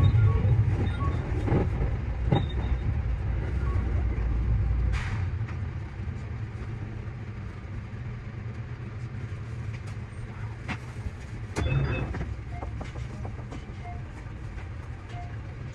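JR Central 315 series electric train running on the rails: a steady low rumble with scattered sharp clicks from the wheels over the track, the rumble getting quieter after about five seconds.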